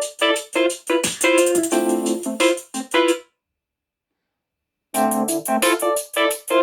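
Upbeat keyboard-led electronic dance music played at full volume through a small portable Bluetooth speaker. About three seconds in it cuts to dead silence for roughly a second and a half, then starts again.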